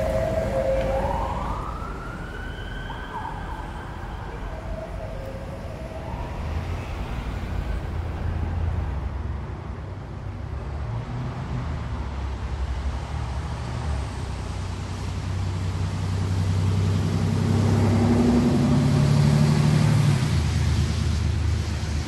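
An emergency-vehicle siren wails over city traffic in the first few seconds, its pitch gliding up and down. Then steady road and traffic noise, with a large vehicle's engine humming low and rising in pitch and loudness a few seconds before the end, as of a bus pulling away.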